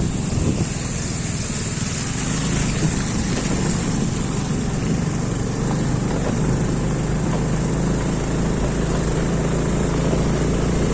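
A motor vehicle's engine running steadily while it is on the move, a low drone mixed with road and wind noise.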